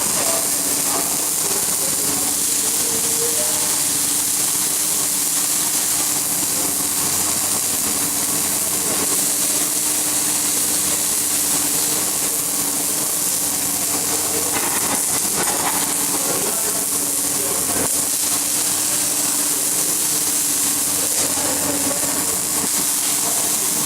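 Electric arc welding running continuously: a steady frying hiss with a constant low hum under it.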